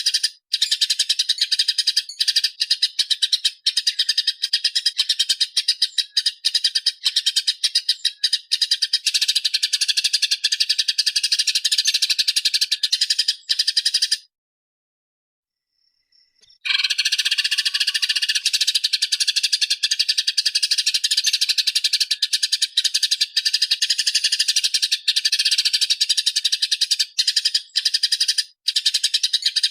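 Master recording of a small songbird giving dense, rapid, high-pitched chattering calls without pause. The calls stop dead for about two seconds past the middle, then resume.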